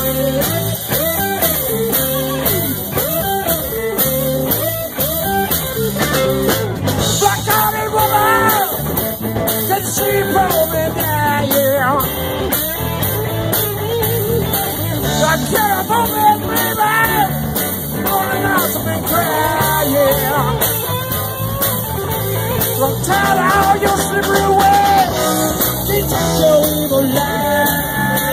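Live band playing amplified through PA speakers: electric guitars, bass and drum kit, with a man singing lead from about seven seconds in.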